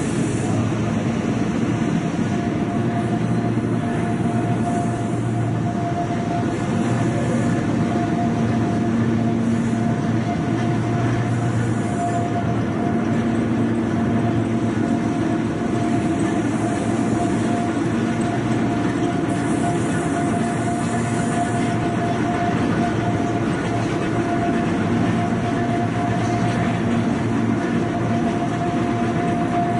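Overhead travelling crane running along its rails in a factory hall while carrying a large diesel engine: a steady mechanical rumble with a constant whine held throughout.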